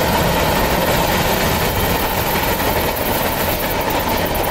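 Tail end of a long freight train of tank cars rolling away on the main line: a steady rumble of steel wheels on rail, slowly fading.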